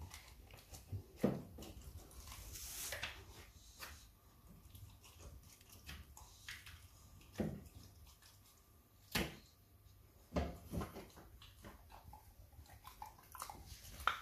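Rottweiler puppy gnawing and licking a rib bone, with scattered sharp cracks of teeth on bone every second or two among softer chewing and licking.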